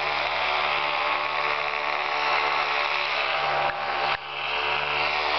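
ParaToys HE 120 paramotor engine and propeller running steadily in flight overhead, dipping briefly about four seconds in.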